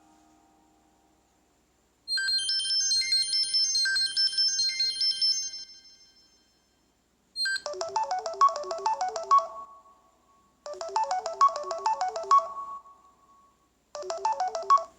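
Samsung Galaxy Tab Active ringtones playing one after another. First comes a bright, high chime melody that lasts about three and a half seconds. After a short pause, a different fast melodic ringtone phrase plays three times, and the third is cut off.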